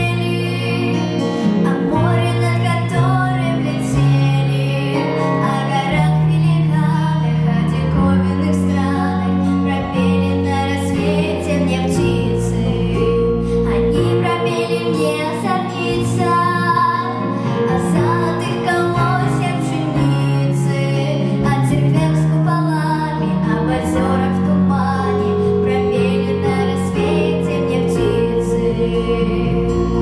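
A young girl singing a Russian-language song into a microphone over an instrumental backing track, amplified through the hall's speakers.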